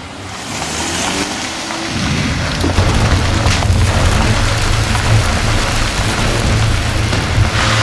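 A car driving along a gravel road: a steady low engine rumble under a hiss of tyre and road noise, growing louder about two seconds in.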